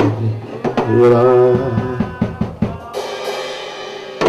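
Live worship band playing the close of a gospel song: held chords over a drum-kit fill of snare and bass-drum hits, with cymbal crashes about three seconds in and again at the end as the music dies away.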